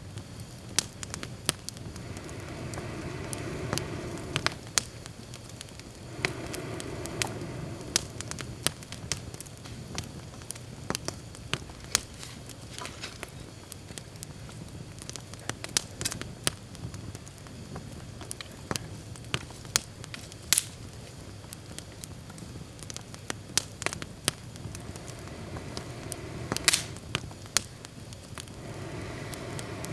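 Wood campfire burning, crackling and popping with many sharp snaps over a steady rumble of flames that swells a few times.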